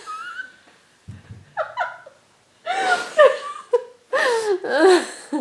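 Laughter in several short bursts, with brief pauses between them.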